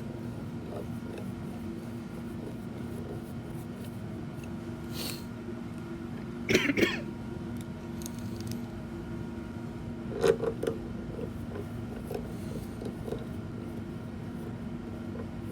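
Steady hum of a workshop heater, with a few short handling noises from the planer knife and screws being placed. About halfway through there is a brief throat-clearing sound.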